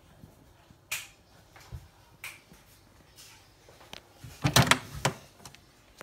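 Sharp plastic clicks and knocks from handling the detergent drawer of a Miele W1 washing machine: a few single clicks, then a louder quick cluster of clacks about four and a half seconds in.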